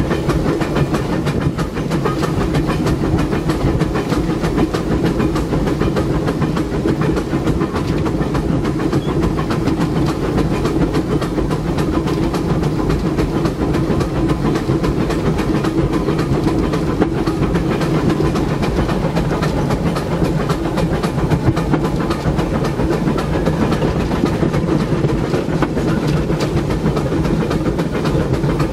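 A Disneyland Railroad narrow-gauge steam locomotive running steadily under way, heard from inside its cab: a dense, fast rattle of the engine and wheels on the track over a steady low rumble.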